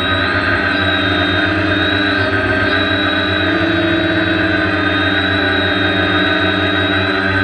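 Electric motors and propellers of a DJI Naza-controlled multirotor drone, heard close up through the onboard GoPro: a steady, loud whine with several pitches at once that shift slightly as it holds a hover.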